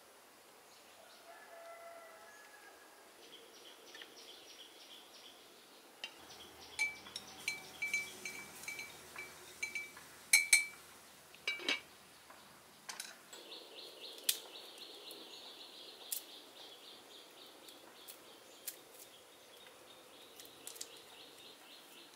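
Quiet outdoor ambience of insects trilling in fast pulsing runs and birds calling, including a short high note repeated about twice a second. A few sharp clicks and knocks come from food and utensils being handled, the loudest about ten and twelve seconds in.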